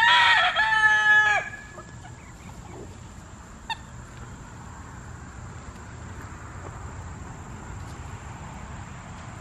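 A rooster crowing once, a loud drawn-out call already under way that ends about a second and a half in. After it there is only faint steady background noise and one small click a little before four seconds.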